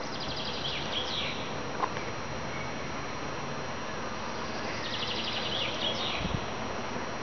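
A songbird sings twice over steady outdoor background noise, each time a rapid trill followed by a few swooping notes: about a second in and again around five seconds in. There is a brief low thud near the end.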